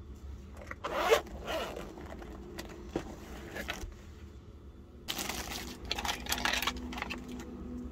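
Zipper on a portable jump starter's carrying case being pulled open in short ripping strokes, then a louder stretch of hands rummaging through the cables and plastic bag inside the case.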